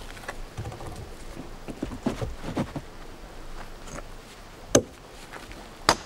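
Stones being wedged under oak log beams: small knocks and scrapes of stone on wood and stone, then two sharp hammer blows near the end, driving a stone wedge in tight under a log.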